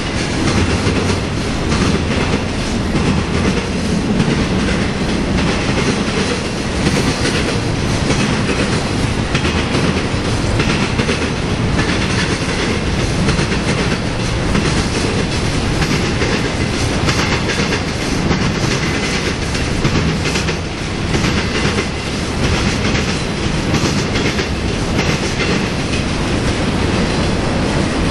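Intermodal freight train's trailer-on-flatcar cars rolling past: a steady rumble of steel wheels on rail with a clickety-clack of the wheels over rail joints.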